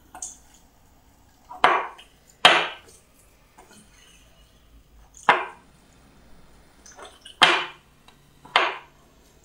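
Metal spoon stirring thick brownie batter in a glass bowl, scraping and knocking against the glass in five separate strokes a second or more apart, the loudest about two and a half seconds in.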